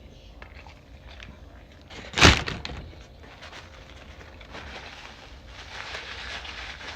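Quiet handling and eating noises, with one sharp, loud knock a little over two seconds in.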